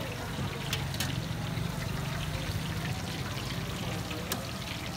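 Hot cooking oil sizzling and bubbling in a large flat iron pan as shami kababs fry, with a few sharp clicks and a low steady hum underneath.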